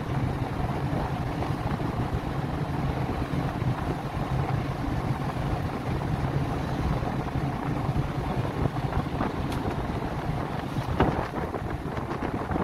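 Steady low rumble of a cargo ship's and tugboats' engines during harbour manoeuvring, with wind buffeting the microphone. A single sharp knock near the end.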